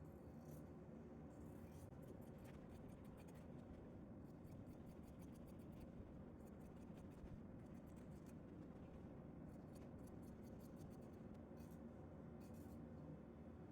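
Faint, crisp scratching from hand work on fabric, in short quick runs of strokes with pauses between.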